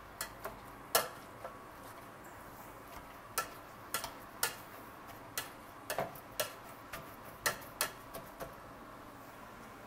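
Wire potato masher mashing boiled potatoes and cooked haddock in a stainless steel pot, its metal clicking and knocking against the pot in irregular sharp taps. The taps stop near the end.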